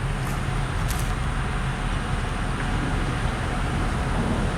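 Steady low engine rumble with a hiss over it.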